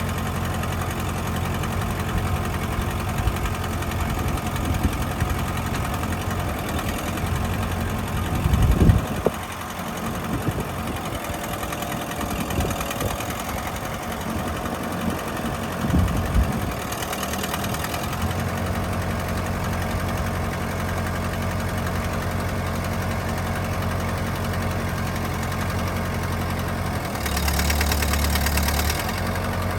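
Kubota M59 tractor's diesel engine running steadily, with two louder low surges about 9 and 16 seconds in. It briefly runs harder and brighter for a couple of seconds near the end.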